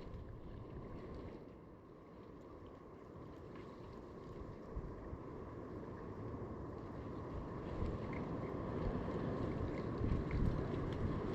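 Wind blowing and rumbling on the microphone, growing louder and gustier towards the end.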